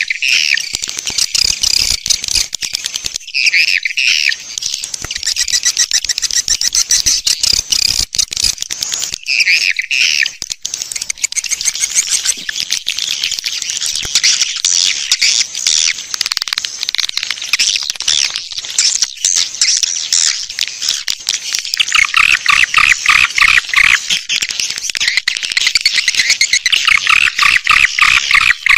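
Swiftlet lure recording of the kind played from swiftlet-house speakers to draw the birds in to nest: dense, unbroken high twittering of many swiftlets, with a few lower, buzzier call bursts, the longest of them about two-thirds of the way through and near the end.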